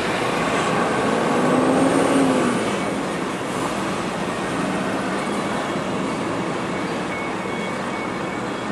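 Road traffic noise: a motor vehicle running, loudest about two seconds in, then slowly fading.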